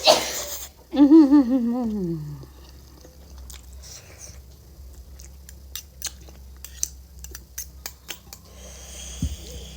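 A person eating spicy Korean instant noodles: a short noisy burst at the start, then a wavering, falling hummed 'mmm' lasting about a second and a half, then several seconds of chewing with many small wet clicks and lip smacks.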